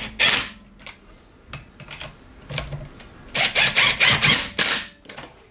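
Cordless impact wrench running lug nuts onto a car wheel in short hammering bursts. There is one burst at the start, then a lull with small clicks, then three bursts in quick succession about three and a half seconds in.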